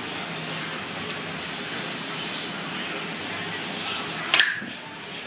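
Flair bartending: a bottle and metal shaker tin being tossed and caught, with one sharp metallic clink and a short ring about four seconds in, a fainter click earlier, over steady background chatter.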